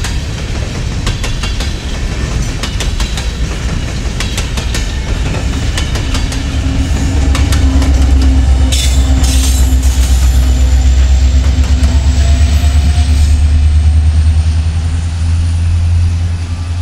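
Freight train of coal gondolas rolling past close by, its wheels clicking over the rail joints. About seven seconds in, a deep rumble builds and grows louder, and a thin high wheel squeal rises slowly through the rest.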